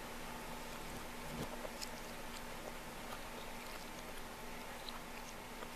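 Faint scattered clicks and taps of plastic spoons and small hands in plastic bowls on high-chair trays as toddlers eat, over a steady low hum.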